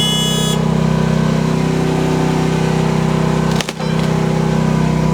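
Rippa R10 gas mini excavator's engine running steadily, with a short high-pitched tone that stops about half a second in and a brief drop in the sound about three and a half seconds in.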